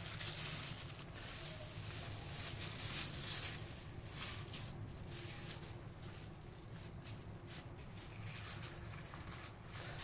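Plastic cling film rustling and crinkling as it is peeled back from a sheet of puff pastry and the pastry is smoothed flat on it: a denser rustle over the first few seconds, then scattered short crackles.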